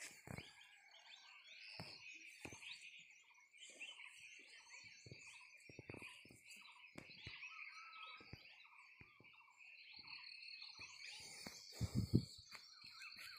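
A faint, steady, high-pitched chorus of calling insects, with scattered soft rustles and crackles of movement through grass and a few louder thumps near the end.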